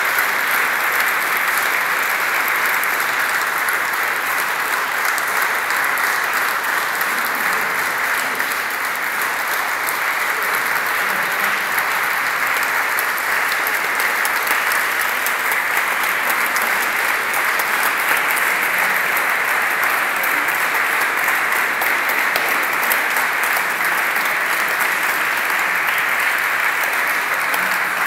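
Audience applauding steadily, a long unbroken round of clapping.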